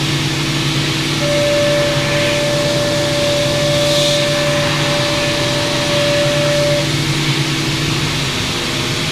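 CNC mill running an end mill on a finish pass around the outside of an aluminum block: a steady machine hum and hiss, with a steady cutting tone that sets in about a second in and drops out near seven seconds.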